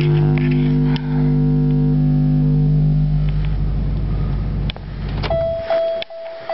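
A steady low drone with several overtones in a Pontiac car, fading out and stopping suddenly about three-quarters of the way through. A steady high-pitched warning chime starts shortly after.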